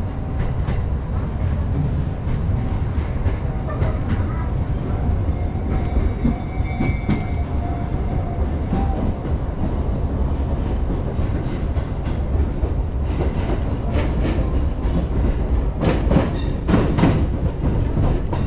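Sotetsu electric train running, heard from inside the passenger car: a steady rumble of wheels on rails with a faint whine in the first half, and a run of clicks and knocks near the end as the wheels pass over the track.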